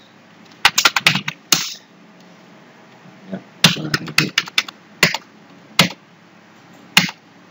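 Computer keyboard keystrokes as numbers and text are typed into a form: a quick cluster of key clicks about a second in, a longer run from about three and a half to six seconds, and a single click near the end.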